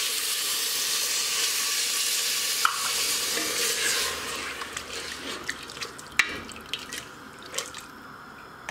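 Water poured into a hot pressure cooker of fried spiced chicken, sizzling and hissing for about four seconds. It then dies down while a wooden spatula stirs and knocks a few times against the pot.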